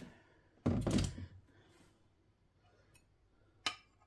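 Kitchen handling sounds of a butter knife against a ceramic baking dish: a dull knock about a second in, then a single sharp click near the end.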